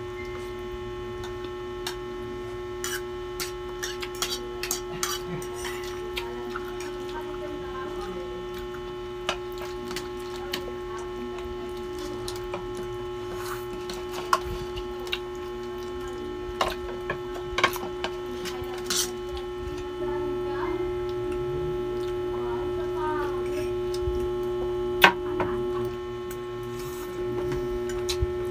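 Forks clicking and scraping on plates and the small sounds of eating noodles, as short scattered clicks over a steady electrical hum.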